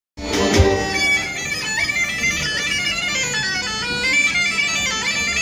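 Live folk band playing a lively tune outdoors: a stepping melody carried over a steady drone.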